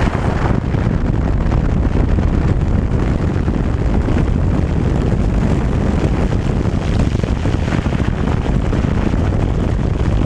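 Peugeot 207 driving on the road: steady tyre and road noise with wind buffeting the microphone.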